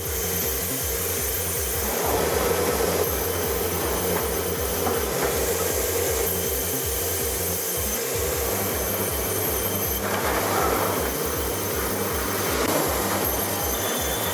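NTB twin band saw sawmill line running and sawing through logs: a steady, loud cutting noise with machinery running underneath.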